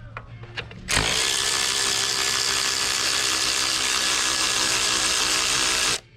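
Power tool spinning out a bolt in the engine bay. It starts abruptly about a second in, runs steadily at one speed for about five seconds, and cuts off suddenly, after a few light clicks of the socket being fitted.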